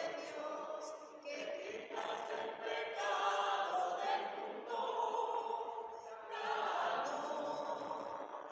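Group of voices singing a hymn together, in phrases with short pauses between them.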